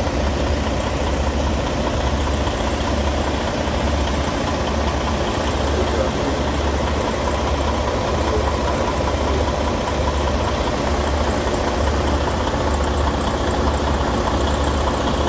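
Idling diesel semi-truck engine: a steady, low drone with an even throb.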